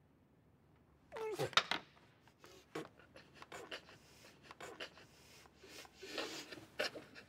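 A girl gagging and spitting as she tastes soap she took for a sweet. A sudden choked cry comes about a second in, then short wet mouth clicks, and a breathier retch near the end.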